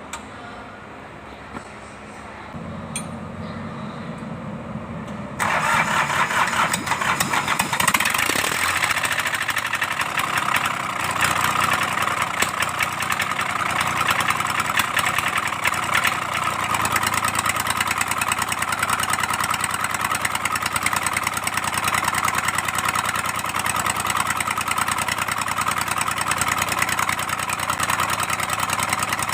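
Kubota D1402 three-cylinder diesel on an L2402 tractor being started: the starter cranks for about three seconds, then the engine catches and settles into steady running.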